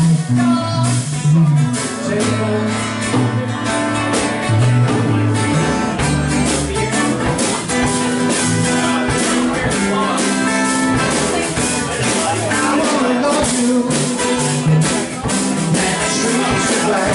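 Live band music: an acoustic guitar played with a drum kit keeping a steady beat, and a man singing into a microphone.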